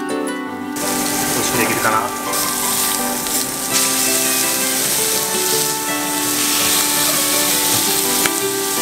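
Two beef steaks searing in hot oil in a cast-iron skillet, a steady loud sizzle that comes in about a second in. Partway through the steaks are turned with metal tongs. Background music plays underneath.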